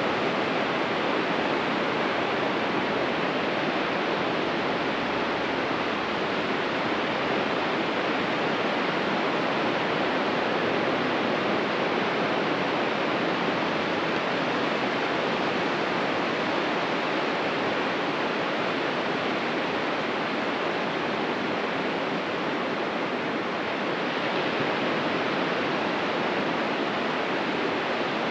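Ocean surf washing on a beach: a steady, even rush of water with no single wave standing out.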